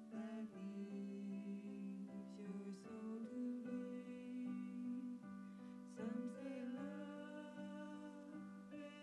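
Slow music with long held melody notes.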